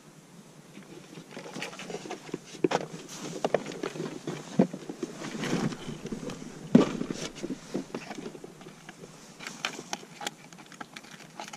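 Handling noises: irregular clicks, knocks and scraping of gear being moved about, with two sharper knocks about four and a half and seven seconds in.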